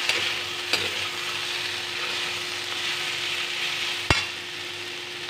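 Sliced potatoes and pointed gourd sizzling in mustard oil in a steel kadai while being stirred with a spoon, with a steady frying hiss. A single sharp knock about four seconds in, after which the sizzle is slightly quieter.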